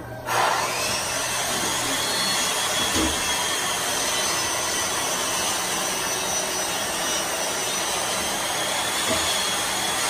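New LG front-loading washing machine running an empty cotton-cycle cleaning run, with water rushing steadily into and around the drum. The sound starts abruptly right at the beginning and stays at an even level.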